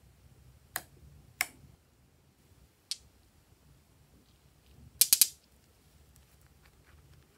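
Small plastic containers clicking as they are handled: a few single sharp clicks, then a quick run of three louder clicks about five seconds in.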